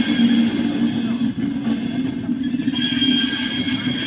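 Indian Railways passenger coaches rolling slowly past on the rails, a steady low drone from the wheels with a thin high squeal that grows stronger about three seconds in: the wheels grinding against the rails as the express pulls out.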